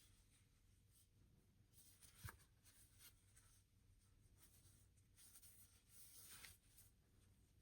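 Faint handling noises: soft rubbing and rustling, with one sharp tap a little over two seconds in and a slightly louder rustle near the end.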